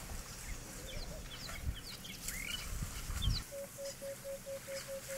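Wild birds calling: a scatter of short, high, downward chirps, then from about three and a half seconds in a quick, even run of about nine low piping notes. A low rumble sits under the first part and stops about three and a half seconds in.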